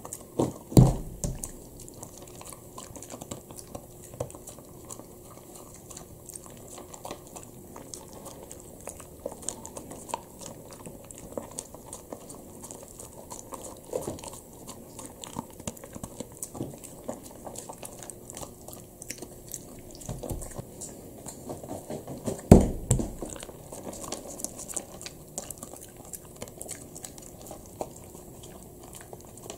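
A Shiba Inu crunching dry kibble, with many small crunches and clicks as she picks the pieces up and chews. Two louder thumps come about a second in and about 22 seconds in.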